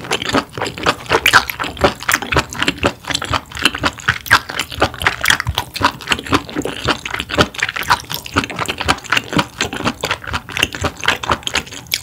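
Close-miked chewing of sea bass: a rapid, irregular stream of mouth clicks and smacks.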